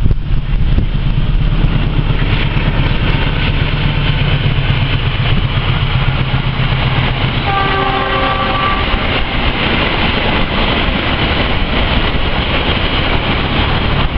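Argo Dwipangga diesel-hauled passenger train passing on the rails, its rumble building from about two seconds in. The locomotive's horn sounds once for about a second just past the middle.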